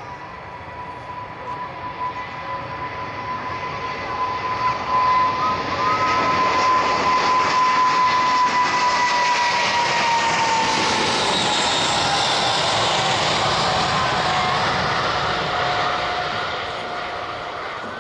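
Airliner passing low overhead: its engine noise swells to a loud peak, and its whine drops in pitch as it goes by, then fades.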